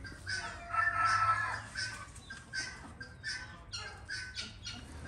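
A hen clucking: a longer call about a second in, then a run of short, evenly spaced clucks.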